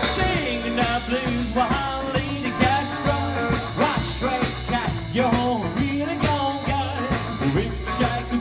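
Rockabilly trio playing an up-tempo number: hollow-body electric guitar, upright double bass and snare drum with a steady driving beat.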